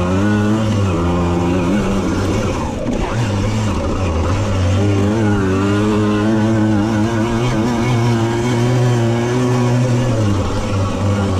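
Small two-stroke moped engine running hard at high revs under racing load. The revs ease off briefly about two and a half seconds in, pull back up, then drop again near the end.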